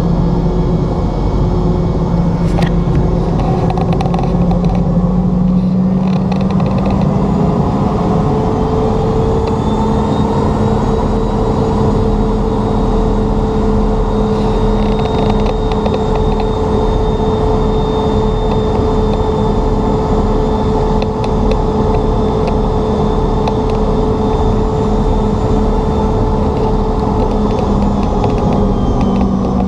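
Cabin noise of a Boeing 717-200 with its rear-mounted Rolls-Royce BR715 turbofan engines running: a loud, steady rush with an engine hum and a faint high whine. The hum steps up in pitch about eight seconds in, and there is a single small click early on.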